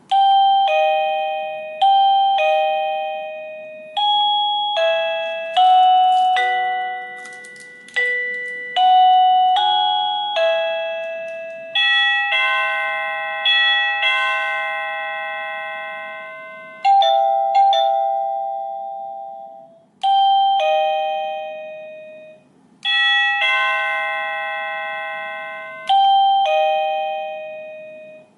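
Alierkin wireless plug-in door chime playing through its built-in ringtones one after another: electronic ding-dong chimes and short bell-like melodies. Each note strikes and fades, and the tune changes every few seconds, with brief pauses between tunes.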